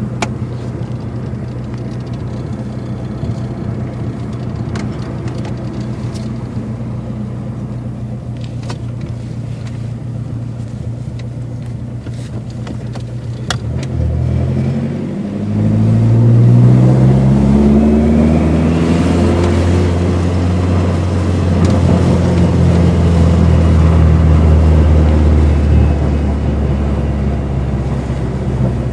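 Dodge SRT-4's turbocharged four-cylinder engine running steadily, then about halfway through revving up in a rising pitch and holding louder under a pull before easing off near the end.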